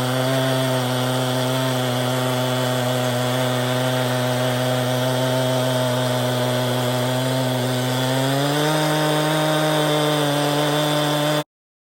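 Two-stroke chainsaw on a chainsaw mill running at full throttle while ripping a log with a full skip chain, its engine pitch held down under the cutting load. About eight and a half seconds in the pitch rises as the load eases, and the sound cuts off suddenly near the end.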